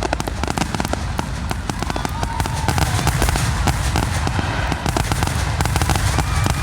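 Fireworks display: a dense, unbroken barrage of bangs and crackles over a deep rumble.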